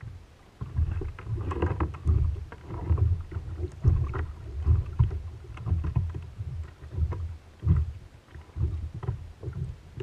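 Small waves slapping and lapping against the hull of an anchored plastic sit-on-top kayak, in uneven low thumps, with light clicks of fishing tackle being handled.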